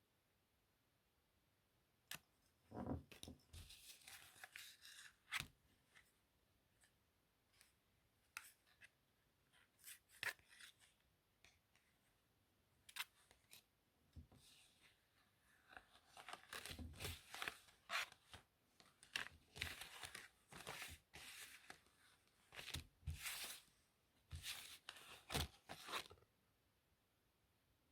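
Playing cards handled close to the microphone: scattered sharp clicks and snaps, then a denser stretch of rapid clicking and rustling through the second half.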